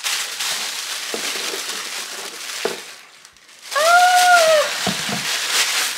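Tissue paper rustling and crinkling as it is pulled off a wrapped item. About four seconds in, a woman gives a short, high "ooh" of surprise.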